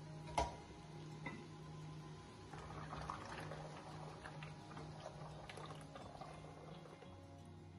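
Water boiling in a stainless steel pot with pasta just dropped in, stirred with a wooden spoon: faint bubbling and light scrapes and taps. A sharp knock about half a second in.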